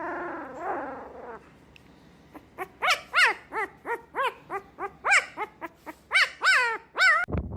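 A dog gives a drawn-out, falling whine, then a run of short, high-pitched yips, about two or three a second.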